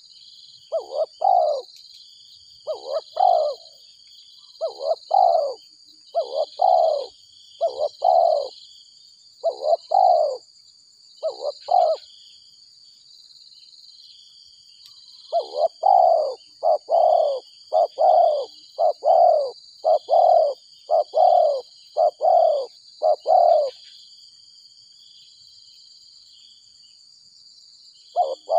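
Spotted dove cooing: short phrases of a few falling notes, repeated about every second or two in two long series with a pause of a few seconds between them, then stopping a few seconds before the end. A steady high buzz runs underneath throughout.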